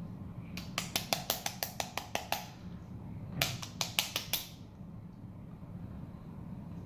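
Flarp noise putty squeezed in its pot, trapped air escaping in two runs of quick pops that make a fart noise, the first run longer than the second.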